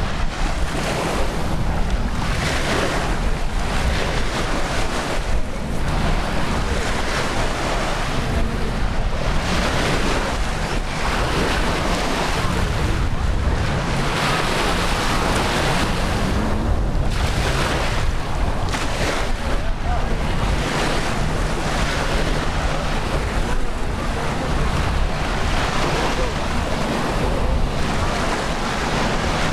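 Ocean surf washing steadily onto a beach, with wind buffeting the microphone.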